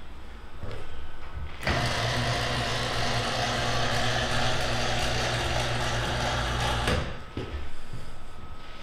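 Electric lift motor of a Hill chiropractic table running as the table is lowered: a steady motor hum that starts suddenly about two seconds in and cuts off about five seconds later.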